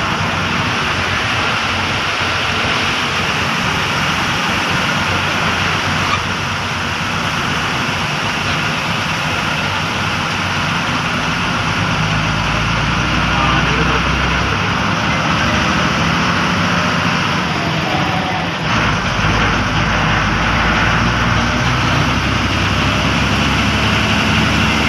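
KSRTC bus's diesel engine running with road noise as the bus drives, heard from on board; the low engine drone gets louder about halfway through and again after a brief dip near the end.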